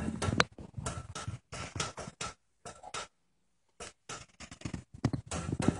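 Window blind slats clattering as a cat paws them back and forth, in short, irregular bursts of rapid clicks with gaps of silence between them.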